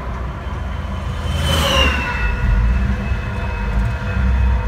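Dodge Dakota 3.9 V6 in an old International truck running, heard from inside the cab. A passing vehicle sweeps by with a falling whoosh about a second and a half in, then the engine gets louder as the truck pulls away.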